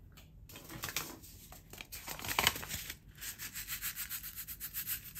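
Paper seed packet rustling and rubbing as it is handled, then a fast run of short scratchy strokes in the second half, as the packet is shaken or tapped to get beet seeds out.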